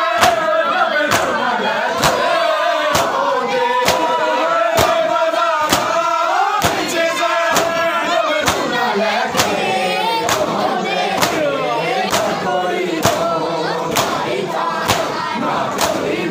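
A large crowd of men chanting together while beating their chests with open hands in unison (matam), each massed slap landing sharply about once a second over the chanting.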